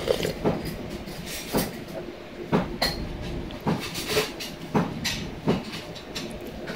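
Irregular knocks and clinks of a soup spoon and tableware against a ceramic bowl and tray, over a steady low hum.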